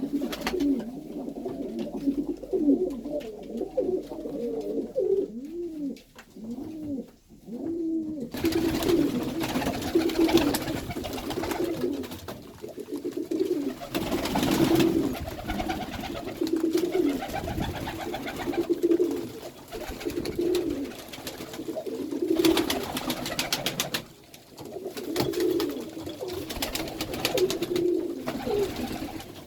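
A loft full of Iranian pigeons cooing, many birds at once with overlapping calls, and stretches of rustling noise from about eight seconds in.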